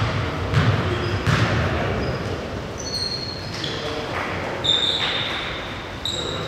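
A basketball bouncing on a gym floor, three bounces in the first second and a half, with short high sneaker squeaks on the court later, echoing in a large hall.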